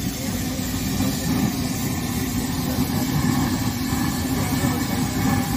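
Large wok of oil deep-frying potato pakoras on a street stove: a steady low rumble with a faint hiss of bubbling oil above it.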